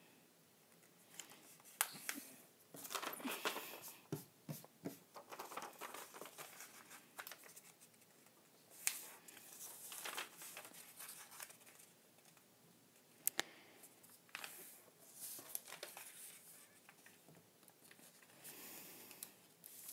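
A sheet of paper being folded by hand on a wooden table: faint, intermittent rustling and crinkling as the corner flaps are folded in and the creases pressed flat, with a few sharp clicks.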